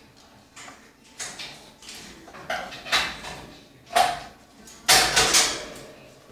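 Orange-winged Amazon parrots giving short, harsh, noisy squawks and chatter, a string of separate bursts with the loudest and longest about five seconds in.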